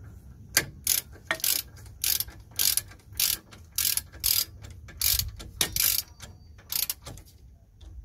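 Socket ratchet wrench clicking as it tightens the lower bolt of a new brake caliper, in a dozen or so quick strokes at about two a second. The strokes stop about a second before the end.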